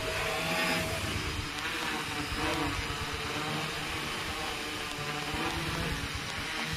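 Homemade F450 quadcopter's brushless motors and propellers whirring as it hovers low, several tones wavering up and down in pitch as the motors keep adjusting thrust.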